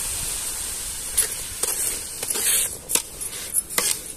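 Water pouring steadily into a metal pot of sugar for about the first second. Then a metal ladle scrapes and knocks irregularly against the pot as the wet sugar is stirred to dissolve it.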